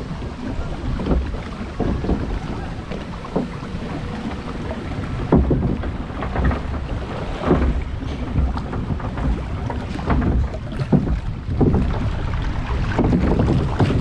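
Log-flume boat riding along a water-filled fibreglass channel: rushing, churning water with wind buffeting the microphone and a few short thumps.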